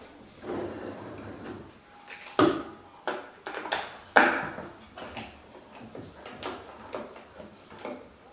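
Irregular knocks and clunks of a wooden table being handled, with two sharper knocks about two and a half and four seconds in and lighter taps after them.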